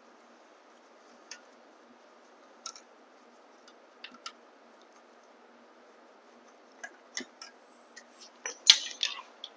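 Scattered light metal clicks of a hex key working the small 4 mm bolts on a bash guard under an e-bike's mid-drive motor, with a busier run of louder clinks in the last three seconds.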